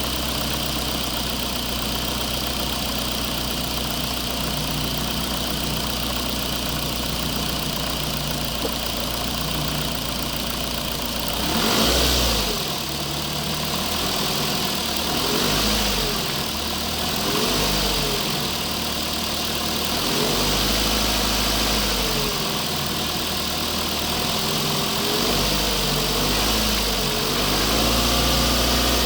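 RC construction machines running with a steady engine-like idle. From about twelve seconds in, the motor sound rises and falls in pitch again and again as the machines work.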